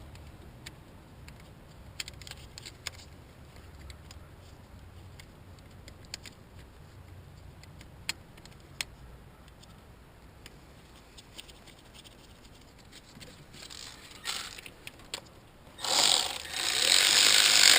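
Hand work on an engine: scattered light clicks and taps of tools and parts, then about two seconds of much louder, rasping mechanical noise near the end.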